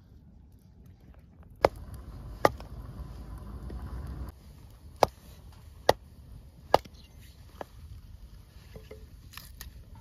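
Small hatchet chopping kindling from firewood on a log: five sharp strikes, two a bit under a second apart, then three more about a second apart, followed by a lighter knock.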